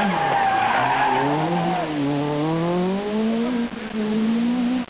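Renault Clio Maxi Kit Car rally car's four-cylinder engine at high revs on a stage. Its pitch drops sharply just after the start as the driver lifts off, then climbs again through a gear change, with a brief dip about three and a half seconds in.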